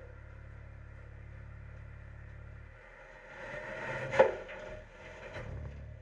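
McNeilus front-loader garbage truck working its Curotto Can: a steady low hydraulic hum cuts off about three seconds in. Then a load of recycling shifts and clatters inside the metal can, with one loud metal bang about four seconds in.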